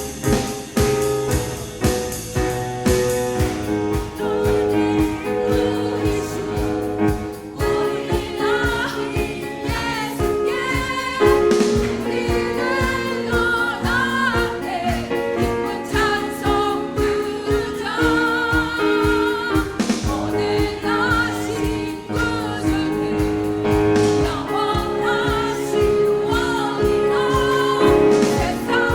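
Small church vocal ensemble singing a Christmas carol with instrumental accompaniment.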